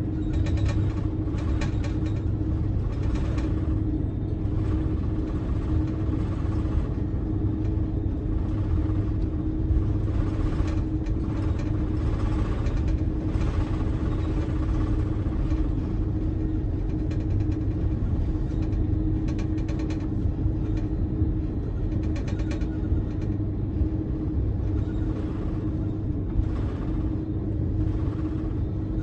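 Steady cabin rumble inside an Airbus A330-203, from its General Electric CF6-80E1 turbofan engines and the airframe, with a constant drone and scattered short rattles.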